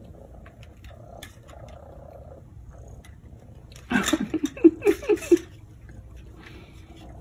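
A cat meowing in a quick run of short, pitched calls, about a second and a half long, starting about four seconds in.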